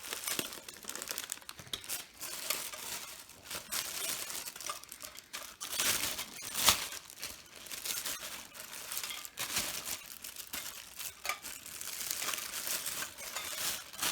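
Packaging being pulled off a boxed bird feeder: continuous crinkling and rustling, with one sharp knock about halfway through.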